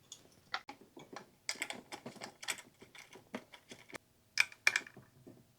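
Light, irregular clicks and taps of a hex wrench turning and removing small bolts on a bicycle's front end, with two louder clicks near the end.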